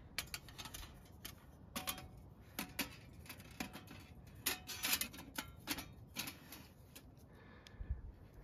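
Irregular metal clicks and light clinks as the panels of a small folding metal camp stove are slotted together, a few of them ringing briefly.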